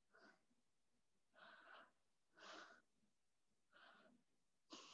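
Near silence with faint, short breaths about once a second from a woman holding a reverse plank.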